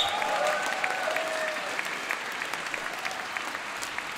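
Crowd applauding, with a few faint cheers in the first second or so, slowly dying down.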